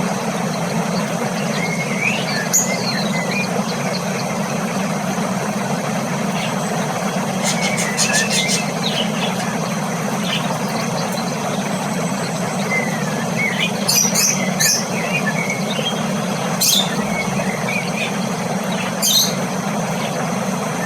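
Cockatiels giving short chirps and calls every few seconds, with a quick run of rapid calls about eight seconds in, over a steady low background hum.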